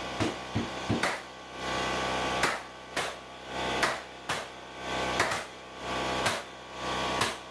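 Pneumatic hardwood floor nailer struck with a mallet, driving nails through 3/4-inch hardwood flooring boards: a run of sharp knocks, several in quick succession at first, then one every half second to second.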